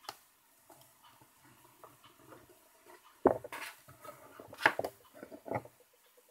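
Handling of a Nook HD tablet in its folio case as it is moved and set down: a small click at the start, then sharp knocks with rustling, loudest about three, four and a half and five and a half seconds in.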